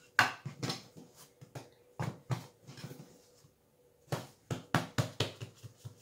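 Hands handling strips of raw bread dough on a countertop: a run of irregular knocks and soft slaps in three short groups, the loudest just at the start.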